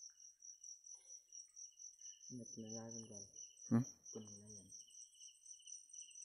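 Night insects trilling steadily in two rapidly pulsing high notes, one higher than the other. A low voice murmurs briefly in the middle.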